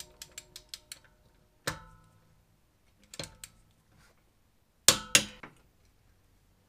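Metal clinking and knocking from hand tools and wheel hardware during a wheel fit: a quick run of light ticks, then a few sharp metallic knocks with a short ring, the loudest two close together about five seconds in.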